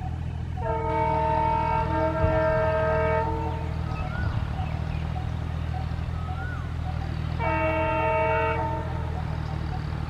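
ALCO WDG-3A diesel locomotive sounding its multi-tone horn twice, a long blast of about three seconds starting just after the start and a short one of about a second later on, over the steady low chugging of its 16-cylinder ALCO 251 engine as it approaches.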